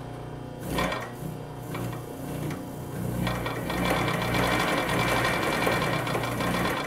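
US Blind Stitch 118-1 industrial blind-stitch sewing machine sewing through folded denim, over a steady hum. It runs briefly about a second in, then runs steadily and louder from about three seconds in.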